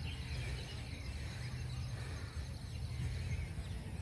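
Outdoor background ambience: a steady low rumble with a few faint bird chirps over it.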